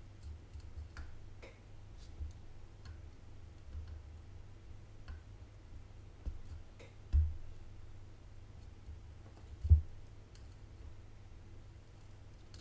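Soldering iron and copper desoldering braid wicking solder off a joint on a power-supply circuit board: faint, scattered small ticks and clicks. Two dull thumps come about seven and ten seconds in, the second the loudest.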